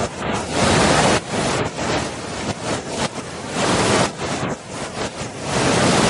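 Waterfall rushing: a dense roar of falling water that swells and dips every second or so.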